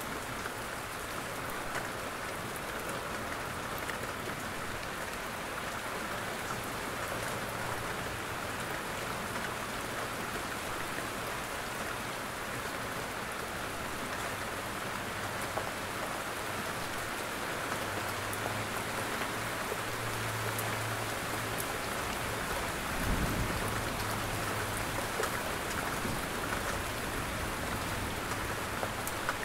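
Steady heavy rain with scattered drops tapping on a roof, and a brief low thump about three-quarters of the way through.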